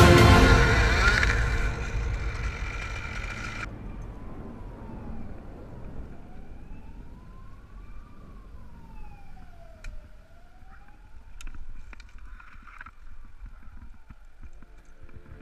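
Background music fades out in the first few seconds. Then a faint siren wails, rising and falling slowly about every four seconds. Music comes back in near the end.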